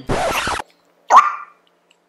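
A child's rasping, disgusted mouth noise lasting about half a second, then a short loud grunt about a second in.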